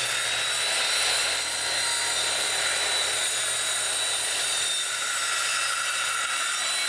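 Bosch corded circular saw rip-cutting a board lengthwise, its motor and blade holding a steady high whine under load. The pitch stays even without bogging down: with the board supported on both sides of the cut, the blade is not binding.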